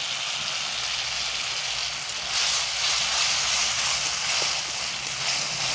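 Tomato chutney sizzling in mustard oil in an iron kadai over a wood fire, a steady hiss that grows louder a little over two seconds in.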